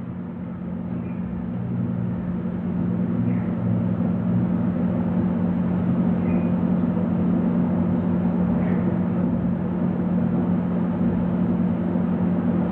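Steady low mechanical hum with an even background rush, like a motor or fan running. It gets somewhat louder over the first couple of seconds, then holds steady.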